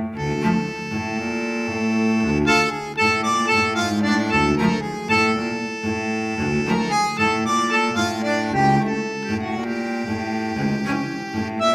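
Background music: a reed instrument playing a melody over a held low note.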